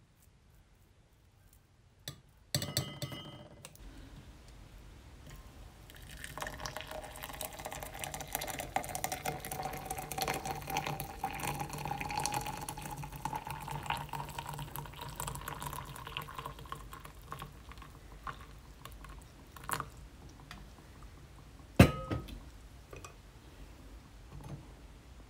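Hot water poured from a gooseneck kettle into a glass French press of coffee grounds and spices, the pitch of the filling rising steadily for about twelve seconds. Before the pour a spoon clatters against the glass, and near the end there is a sharp clink as the press lid goes on.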